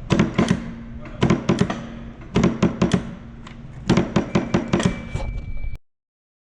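Electric Wire-O sheet metal clamp and press cycling under foot-pedal control, running empty: four bursts of quick metallic clunks over a low hum, with lighter clunks after, then the sound cuts off suddenly near the end.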